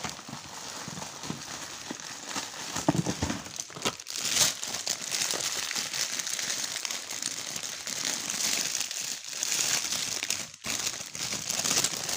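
Clear plastic wrapping crinkling and rustling continuously as hands handle cellophane-wrapped bundles of cosmetic pencils.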